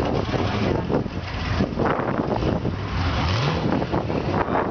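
Chevrolet Camaro idling through open electric exhaust cut-outs, uneven and deep, with one short rev a little past three seconds in.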